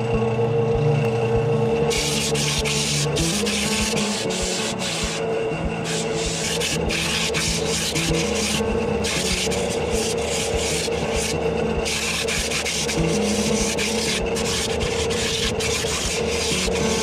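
Coarse 40-grit abrasive sanding the inside bottom of a spalted silver maple and resin bowl to work out tear-out, a rough rasping hiss over a steady hum. The hiss drops away briefly several times as the abrasive lifts off and goes back on.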